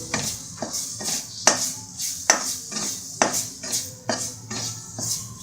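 A spoon stirring and scraping in a kadai, clinking against the pan about twice a second, as crushed ginger and garlic are sautéed in oil with masala powders.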